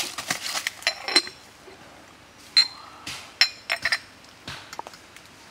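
Small glazed clay teapot clinking as it is handled: a series of sharp, irregularly spaced clinks, each with a short bright ring.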